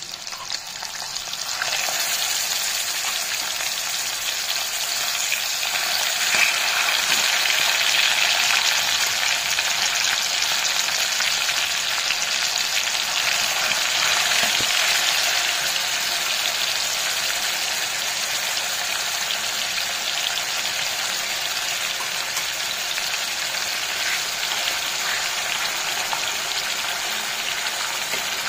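Curd-marinated boneless chicken sizzling as it fries in hot butter and oil in a kadai. The sizzle jumps louder about two seconds in, then carries on steadily.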